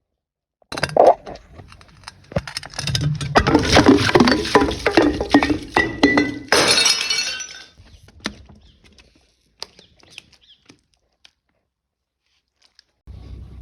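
Glass bottle breaking and being crushed: a sharp crack about a second in, then several seconds of dense crunching and clinking of glass shards. It thins to scattered tinkles and stops, and a new burst of crunching starts near the end.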